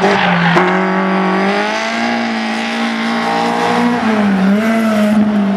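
Volkswagen Golf rally car's four-cylinder engine held at high revs as it drives hard past. The engine note stays steady and high, with a brief dip about four seconds in, over tyre and road noise.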